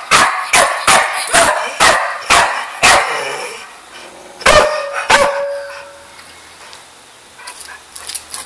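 A dog barking in a rapid run of about seven barks, roughly two a second, then two more barks after a short pause.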